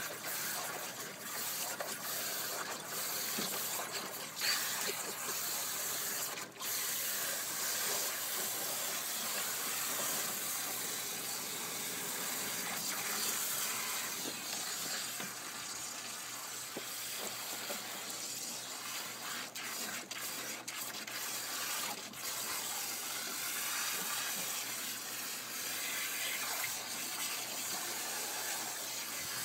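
Garden hose running steadily into a plastic kiddie pool, with a pit bull splashing in the water and biting at the stream.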